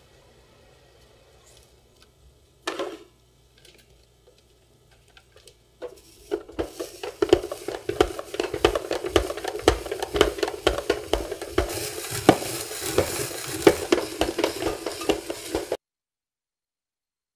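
Hand-cranked spiralizer cutting a zucchini: a dense run of crisp crunching and clicking starts about six seconds in and stops suddenly near the end. A single knock comes a few seconds before it.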